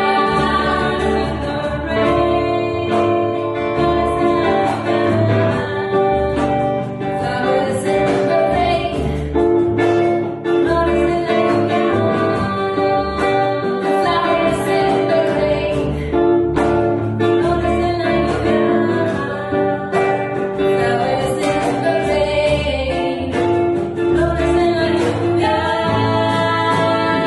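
Live acoustic band playing a song: two women singing in harmony over acoustic guitar, double bass and hand percussion keeping a steady beat.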